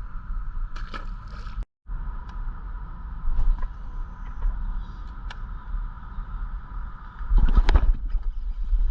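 Steady low rumble with a constant hum on a fishing boat. The sound drops out completely for a moment just under two seconds in, and a short, louder burst of noise comes near the end.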